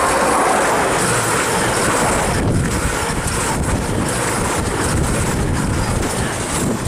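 CrossCountry Voyager diesel multiple unit passing close at speed, its wheels rumbling and hissing on the rails. The sound is loudest as the front of the train goes by at the start and stays steady as the cars run past.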